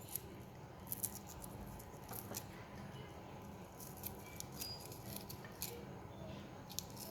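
Faint, scattered light clicks and taps of kitchen utensils being handled while onion is chopped, at irregular moments rather than a steady chopping rhythm, over a low steady hum.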